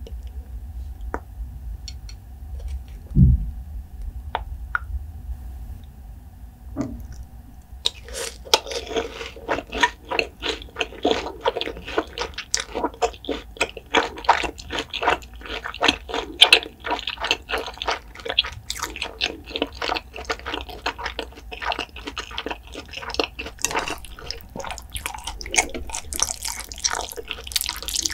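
Close-miked wet, sticky eating sounds from sauce-coated carbo fire noodles: a few scattered clicks and a low thump at first, then from about eight seconds in a dense, rapid run of wet clicks and squelches.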